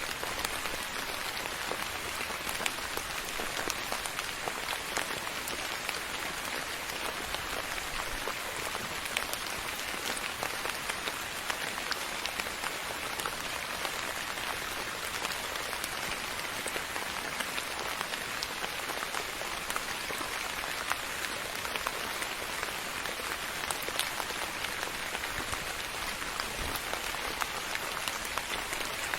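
Steady rain falling on a surface, a continuous hiss dotted with many small drop ticks.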